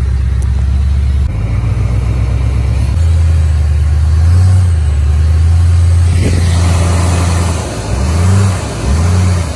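Engine of the vehicle towing a dead pickup on a chain, running steadily under load, with a few revs up and down near the end.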